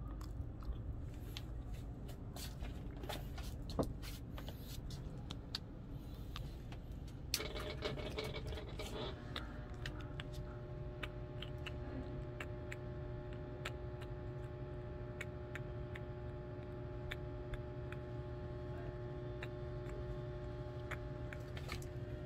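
Oil crackling and popping in the grill pan of an electric mini hot pot cooker as it heats, scattered sharp ticks over a steady low hum. About seven seconds in a louder rush of noise rises for two seconds, after which a few steady hum tones hold on.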